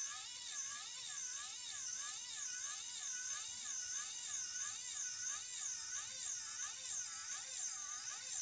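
MG90S micro servo, its electronics removed so it runs as a plain gear motor, whining as it turns an M3 threaded rod to raise the RC dump truck's bed under power. The whine wavers up and down in pitch about two to three times a second.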